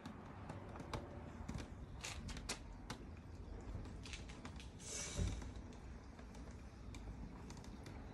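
Portable hand-cranked washing machine being turned to wash a load of clothes in water: faint clicks and taps from the crank and drum, with a brief louder swish and thump about five seconds in.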